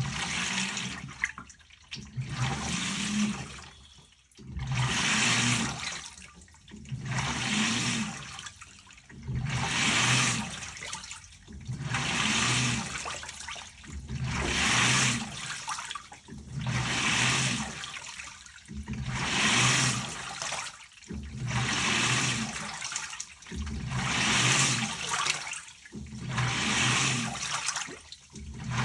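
LG Turbodrum direct-drive top-loader washing: water swishes and churns in strokes about every two and a half seconds, with a low motor hum under each stroke and brief pauses between them. It starts abruptly and keeps an even rhythm.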